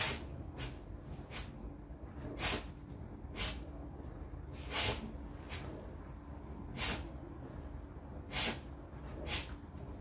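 Whirlpool WFO3P33DLXUK dishwasher running mid-cycle: a steady low hum from inside the machine, with water spraying inside in short repeated swishes about once a second at uneven intervals.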